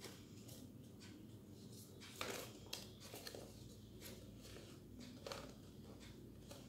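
Faint handling of folded paper: a few brief rustles and light taps, about two seconds in and again near five seconds, as a paper craft is moved and set down on a tabletop, over quiet room tone.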